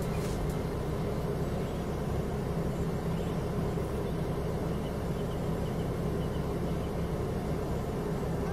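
Xiaomi Mi Drone 4K quadcopter's motors and propellers humming steadily in flight, with a low rushing rumble underneath.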